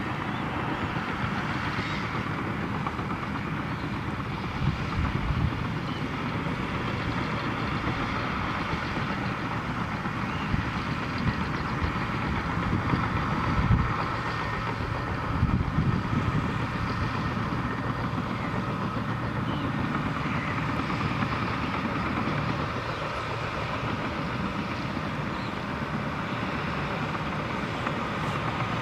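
Komatsu crawler bulldozer's diesel engine running under load as it pushes and levels earth, with a few brief louder knocks scattered through the steady noise.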